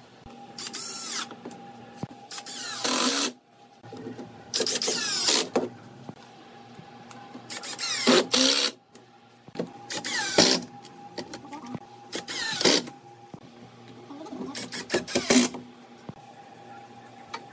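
Red cordless drill-driver driving screws into pine in short bursts, about seven runs of half a second to a second each, the motor pitch rising and falling within each run, over a steady faint hum.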